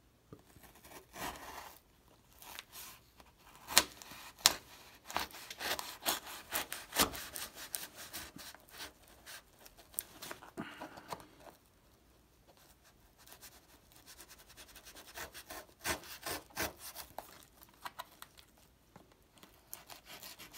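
A knife cutting and scraping through the tape and cardboard of a Priority Mail flat rate box, with irregular scraping strokes and a couple of sharp clicks about four seconds in. The scraping dies down briefly past the middle, then picks up again as the blade slices along the box's end flap.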